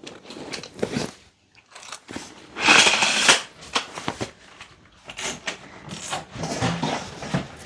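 Knocks and clicks from gear being handled and carried, with a loud scraping rush about three seconds in.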